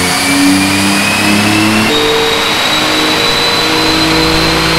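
Mitsubishi 3000GT VR4's built twin-turbo 6G72 V6, straight-piped, pulling under load on a chassis dyno. The note climbs slowly with a high whine over it, and steps to a new pitch about two seconds in.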